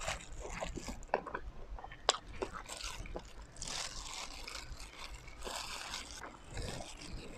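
Close-up eating sounds: chewing and mouth clicks, with the rustle of clear plastic gloves as hands pull apart steamed chicken.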